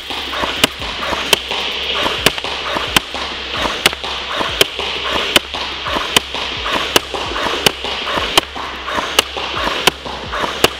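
SOUL SVU-AS airsoft electric gun (AEG) firing a steady string of single semi-auto shots, each a sharp crack, a little more than one a second.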